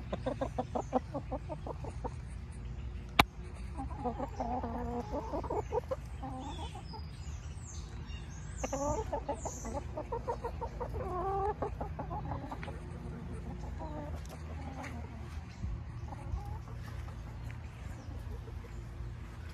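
Chickens clucking close to the microphone, in runs of quick repeated calls, most active in the first half and fainter toward the end. A single sharp click about three seconds in.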